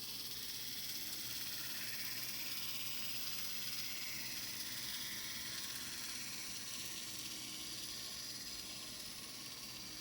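N-scale brass Western Maryland Shay model locomotive running on a coreless motor with a reworked, single-bearing driveline: a steady, fairly quiet high-pitched whir of motor and gearing.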